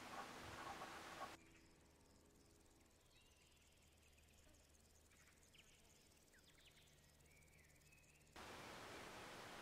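Near silence with a steady faint hiss, which drops away about a second and a half in; in the quiet stretch a few faint, scattered chirps. The hiss returns near the end.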